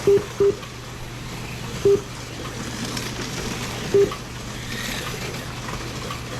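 Short electronic beeps from race-timing software, all at the same pitch: two in quick succession at the start, then single beeps about two and four seconds in. Underneath are a steady low hum and faint hiss.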